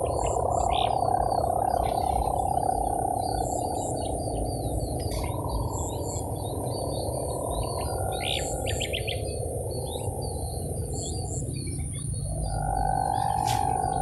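Kite hummer (sendaren, the "mesin brujul" type meant to sound like a hand-tractor engine) humming in the wind as a steady tone that fades in and out three times, over wind rumbling on the microphone. Small birds chirp repeatedly throughout.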